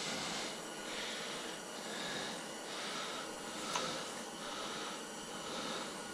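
An angler's heavy breathing while he fights a burbot up through the ice: soft swells of breath about once a second over a steady hiss, with a single sharp click near the middle.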